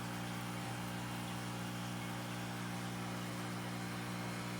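Steady low electrical hum, a few even tones with a faint hiss over them, unchanging throughout.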